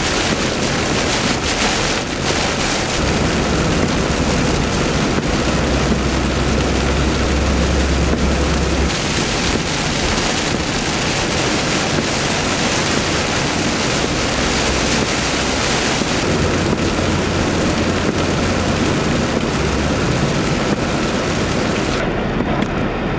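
Heavy rain pouring on a car's roof and windshield, with low thunder rumbling twice, once in the first third and again past the middle. About a second before the end the rain's hiss drops away suddenly.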